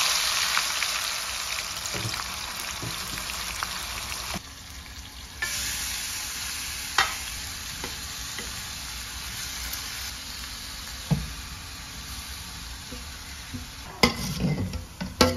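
Marinated mutton and onions going into hot mustard oil in a stainless steel kadai, sizzling loudly. The sizzle breaks off for about a second about four seconds in, comes back softer and settles. A steel ladle clinks on the pans a few times, with a run of metal knocks near the end as the pan is tipped out.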